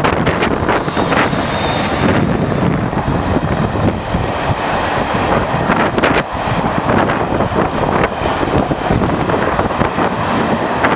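A diesel-hauled passenger train passing close by: the locomotives go past first, then a long rake of Pullman coaches rolls by with a steady rumble and occasional wheel clicks. Heavy wind buffets the microphone.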